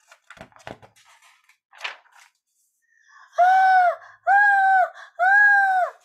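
A woman's voice giving three long, loud, high cries about a second apart, each held on a steady pitch. They follow a few soft knocks and a short breath.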